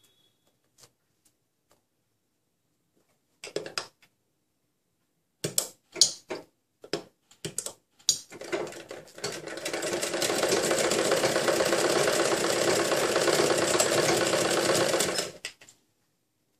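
Domestic sewing machine stitching along a sleeve's edge. A few clicks and knocks come first as the fabric is set under the presser foot. The machine then picks up speed, runs steadily for about six seconds, and stops shortly before the end.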